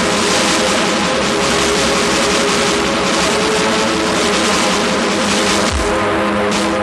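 Lo-fi raw black metal / black ambient demo-tape recording: a dense, hiss-like wall of distorted synth noise over a held synth chord, the drums dropping out until a low drum hit about six seconds in.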